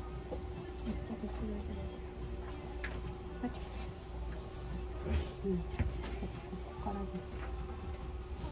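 Electronic device beeping: a quick double beep repeating about once a second, over a steady hum, with faint voices in the background.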